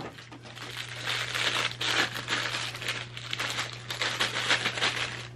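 Clear plastic packaging crinkling and rustling in irregular crackles as a figurine is pulled out of it by hand.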